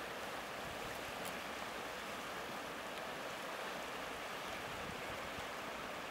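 Steady rushing of a fast-flowing river in spring flood during the ice breakup, carrying broken ice floes downstream.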